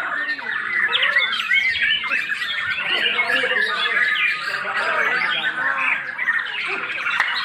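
Many caged songbirds singing, chirping and squawking at once, a dense, unbroken chorus of overlapping calls.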